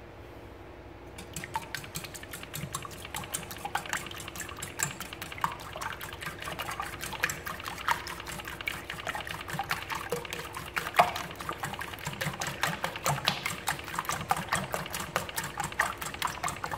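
Wire whisk beating a thin egg, milk and sugar mixture in a stainless steel bowl: rapid, steady clicking of the wires against the metal with wet sloshing, starting about a second in.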